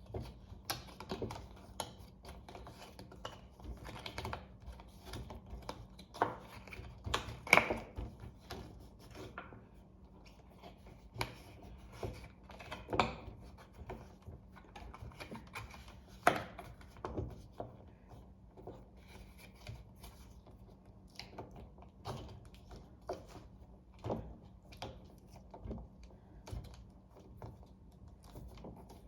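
Plastic parts of a toothbrush holder being handled and fitted together: irregular clicks, taps and knocks, the loudest about seven, thirteen and sixteen seconds in.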